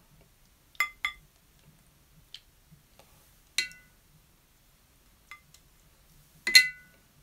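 Paintbrush clinking and tapping against a mixing palette as watercolour paint is mixed: several scattered light clicks, the two loudest, about three and a half and six and a half seconds in, with a brief ring.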